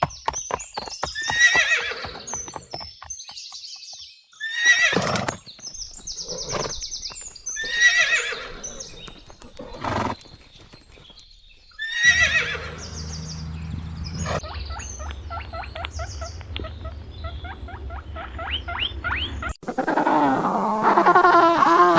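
Horses neighing several times, with hooves clip-clopping between the calls. Near the end a different animal's call with a wavering pitch begins.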